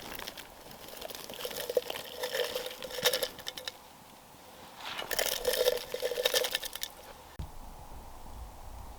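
Something poured twice in rushing pours of about two seconds each, most likely into the layered filter. A steady low background starts suddenly near the end.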